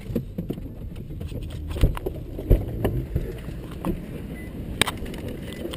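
Handling noise from a GoPro inside an SUV cabin: a steady low rumble with several dull thumps, the two loudest about two and two and a half seconds in, and a sharp click near the end.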